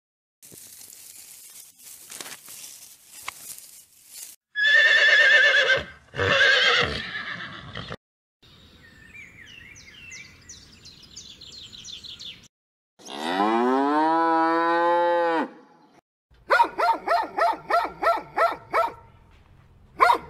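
A string of separate animal calls. Among them is a cow mooing once in a long call that rises slightly in pitch, about two-thirds of the way through, followed by a quick run of short pulsed cries.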